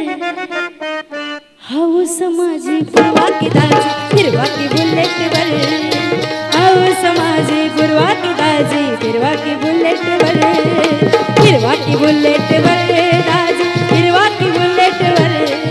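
Lavani folk-music accompaniment: a hand drum played in a driving rhythm under melodic instruments. A short, quieter phrase opens it, and the full band comes in about three seconds in.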